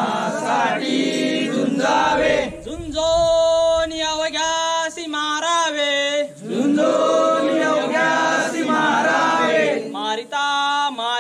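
Men's voices chanting a Hindu devotional prayer together, in long held sung notes with short breaks between lines.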